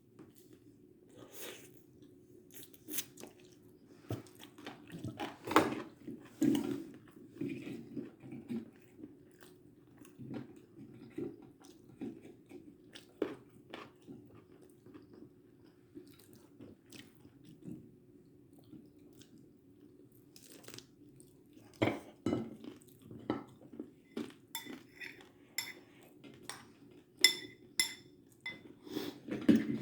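Intermittent crunches, clicks and light clatter of food and dishes being handled, over a steady low hum.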